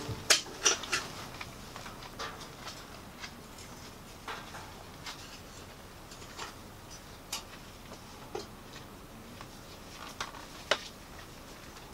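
Light metallic clicks and clinks of an old railroad-style lantern being taken apart by hand on a perforated metal table, with its top, globe cage and fuel cap handled. A quick cluster of sharper clicks in the first second, scattered single clicks after, and one louder click near the end.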